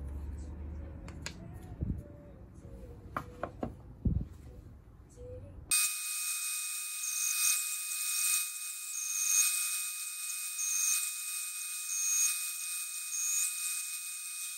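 Wooden blocks handled and knocked together, giving a few sharp clicks and knocks. About six seconds in this gives way to a bandsaw cutting a curve in a hardwood block: a steady hiss and high whine with no low end.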